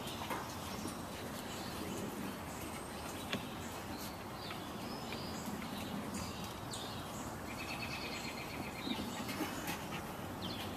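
Steady outdoor background noise with scattered small-bird chirps and a short rapid trill about eight seconds in, plus one sharp click about three seconds in.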